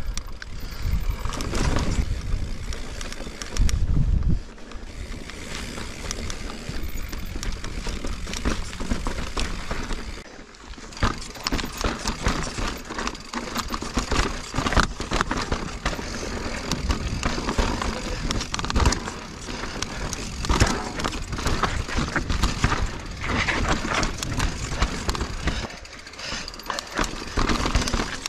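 Mountain bike ridden over rock: tyres crunching and the bike rattling and clattering over rough ground, with a heavy low rumble in the first few seconds. About ten seconds in the sound changes to a denser, steady rattle over a rocky descent.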